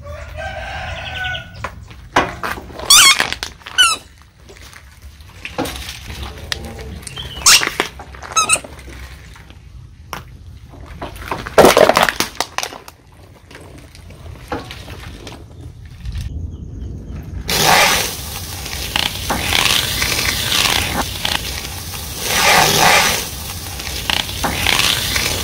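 A car tyre rolls over a soft spiky rubber ball, which gives several short squeaks with sliding pitch, followed by one loud sharp crack around the middle. From a little past halfway, floral foam blocks crunch and crackle steadily under the tyre, swelling louder a few times.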